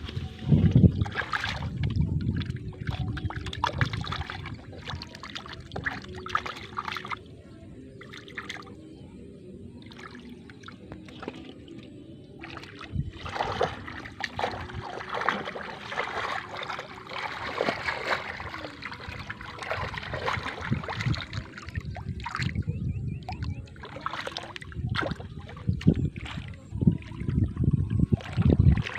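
Splashing and sloshing of shallow muddy water as hands grope through it for fish, in irregular bursts, louder at the start and again near the end.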